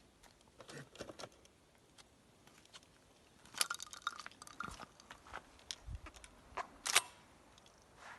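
Metallic clicks and rattles of an ATA semi-automatic shotgun being handled, with a burst of clicking about halfway through and one sharper, louder click near the end.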